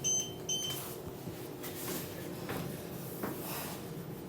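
Schindler elevator beeper sounding a run of short high beeps, about two a second, which stops within the first second. A steady low hum continues after it.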